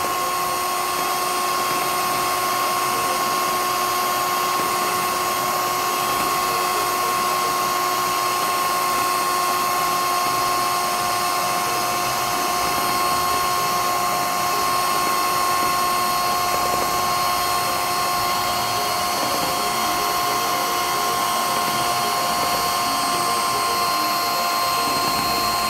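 Scarlett 180 W electric hand mixer running steadily at full speed with a high, even motor whine, its twin beaters whisking raw eggs in a plastic bowl and held clear of the bowl bottom.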